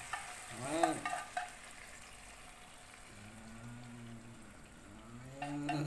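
Hot pan sauce poured from a frying pan onto a plate of fried meat pieces: a faint hiss and trickle of liquid, with a few light clicks about a second in.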